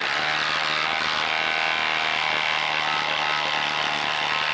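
Milwaukee M18 Fuel impact driver running in reverse, hammering steadily as it backs a long lag bolt out of a hardwood stump.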